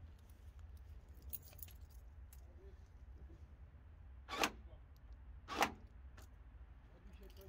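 Newly fitted rear door lock of an Opel Astra G clacking twice, about a second apart, as the central locking is worked from the key's remote to test it. A few faint clinks of the keys come before.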